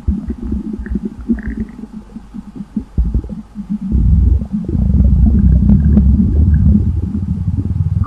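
Stomach rumbling and gurgling: irregular low gurgles for the first few seconds, then a louder, longer rumble from about four seconds in.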